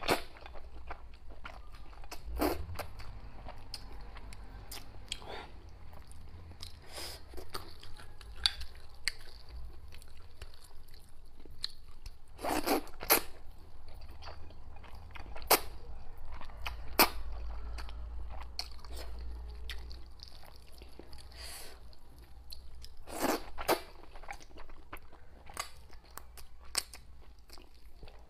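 Close-miked eating of thick rice noodles: wet slurps and chewing, with a handful of sharper, louder slurps spread through, over a faint low hum.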